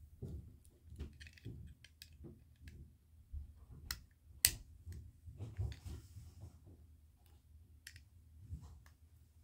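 Plastic LEGO pieces clicking as a small brick assembly is handled in the hands, in scattered irregular clicks, one sharp click about four and a half seconds in, with soft low handling bumps.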